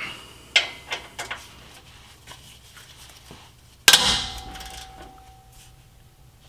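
A ratchet and socket working the 13 mm bolts of a truck's exhaust flange: a few scattered metal clicks and taps. About four seconds in there is a loud metal clang that rings on for a couple of seconds.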